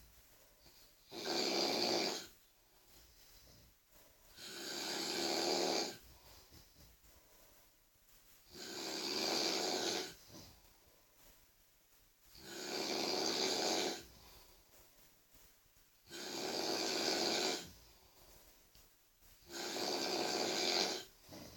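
A person snoring loudly and regularly: six long snores, one every three to four seconds, with quiet breathing between.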